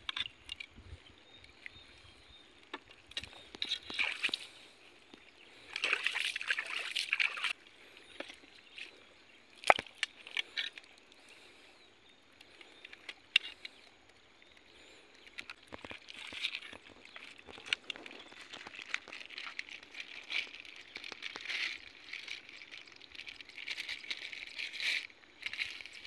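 Muddy water sloshing and splashing in short, irregular bouts as hands grope in a flooded crab hole and handle a mud crab, with a few sharp clicks, the loudest about ten seconds in.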